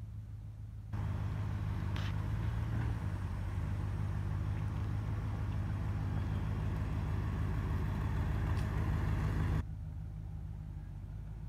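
1977 Mercury Grand Marquis V8 running at low speed as the car pulls away, turns around and comes back: a steady low engine rumble. It becomes fuller and louder about a second in, then drops back abruptly near the end.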